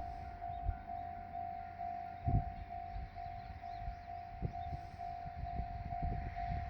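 Japanese railway level-crossing alarm ringing its repeated electronic tone, about two strikes a second, warning that a train is approaching. Wind buffets the microphone underneath.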